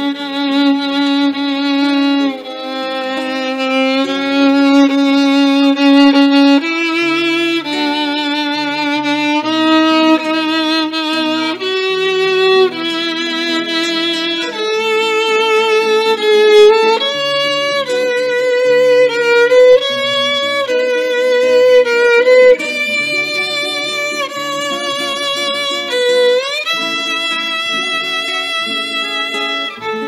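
Violin playing a slow melody with vibrato, accompanied by plucked acoustic guitar notes underneath; near the end the violin slides up into a higher note.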